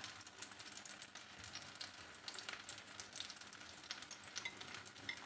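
Slice of bread coated in besan (gram-flour) batter shallow-frying in oil in a frying pan: a faint steady sizzle with scattered small crackles.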